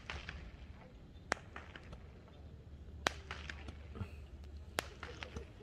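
Sharp, scattered clicks at irregular intervals over a steady low rumble: three loud ones a couple of seconds apart, with fainter ticks between.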